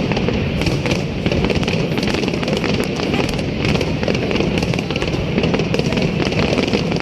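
Fireworks display going off without a break: many rapid crackles and pops over a steady low rumble.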